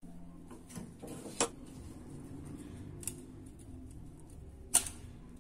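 Sharp metallic clicks of pliers against an old oil lamp's metal frame: one about a second and a half in, a weaker one near the middle, and the loudest near the end, over a low background hum.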